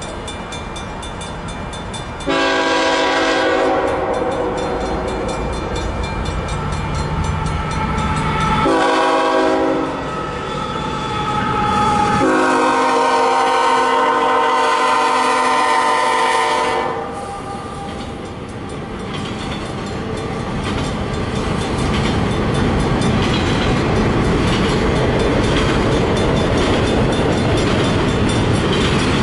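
Canadian National freight locomotive's air horn sounding three blasts for a grade crossing: the first and last long, the middle one short. The train then rolls past with a rising rumble and the clatter of wheels over the rails.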